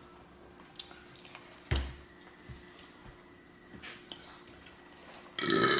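Soft chewing and mouth clicks while eating pizza, with one low thud about two seconds in, then a loud, drawn-out burp near the end.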